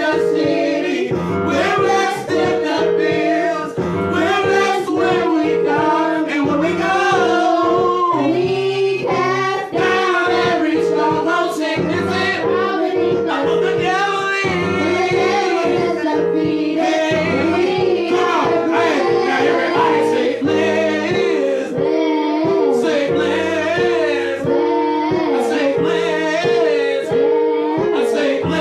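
A gospel praise song sung by a man and children into microphones over an instrumental backing with a steady, repeating bass line.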